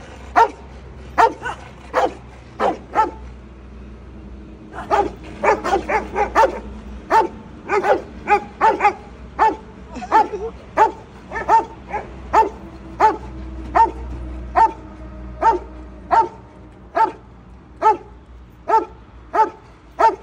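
Rottweiler barking loudly in a long series of deep barks, about one to two a second, with a short pause about three seconds in and a faster run just after. A steady low rumble lies underneath.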